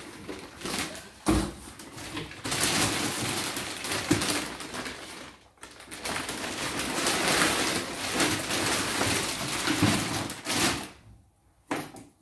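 Clear plastic bags crinkling and rustling as they are handled and pulled open, with a single thump about a second in. The rustling breaks off briefly midway and stops about a second before the end.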